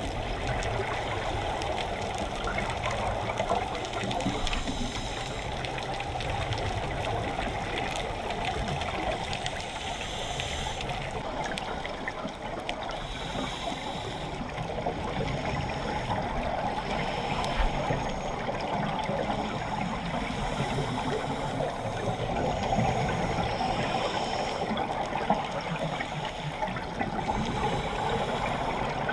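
Underwater sound picked up through a dive camera's housing: a steady, muffled rush of water, with swells of scuba regulator exhaust bubbles every four to five seconds as a diver breathes out.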